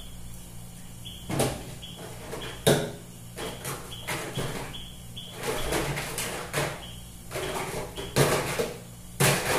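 Baby bottles and kitchen containers being handled during bottle preparation: a series of knocks and clatter as things are picked up and set down, four of them sharp.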